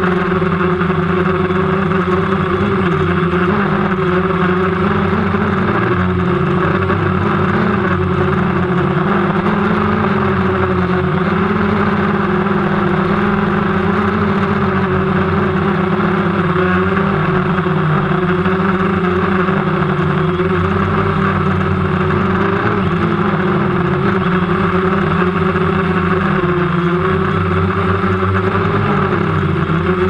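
DJI Phantom 1 quadcopter's four motors and propellers running steadily, heard from the camera mounted on the drone: a constant whine whose pitch wavers slightly now and then as the motor speeds adjust.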